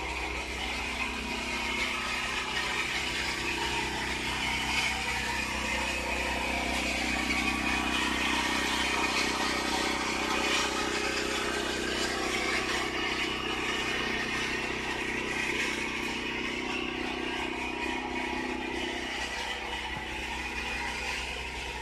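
Steady mechanical hum of running machinery, a low drone with several fixed tones that swells a little through the middle and eases near the end.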